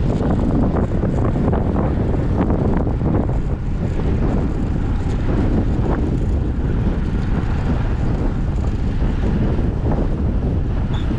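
Steady, loud wind buffeting on the camera's microphone from riding a road bike at speed.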